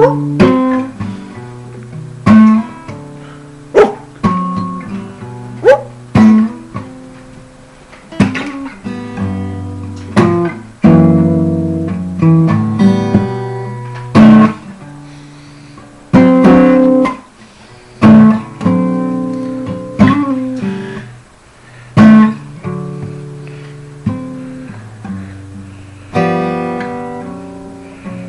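Solo acoustic guitar playing an instrumental passage: chords strummed and picked, with a strong strum about every two seconds, each left to ring and fade.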